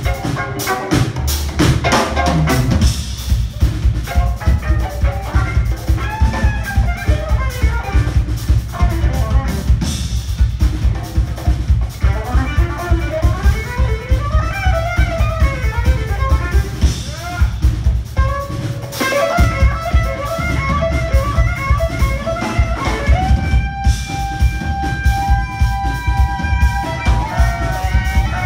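Live jazz-funk band music: a violin solo of fast, sliding melodic lines over a driving drum-kit and bass groove, settling into long held notes near the end.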